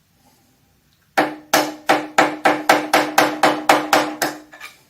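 A hammer striking metal in a quick run of about fourteen blows, about four a second, starting about a second in. Each blow has a short metallic ring. He is working to knock the key out of the crankshaft nose of an Oldsmobile 303 V8.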